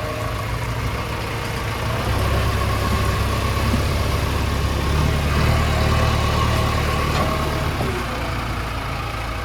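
Heavy diesel engine running steadily. It grows louder about two seconds in, then settles back near the end.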